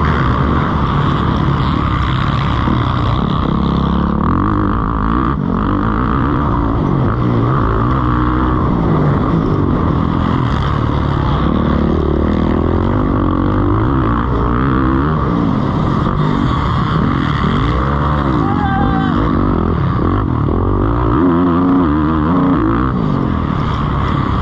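Several motocross bikes racing, their engines revving up and falling back over and over, the rising and falling engine notes overlapping one another.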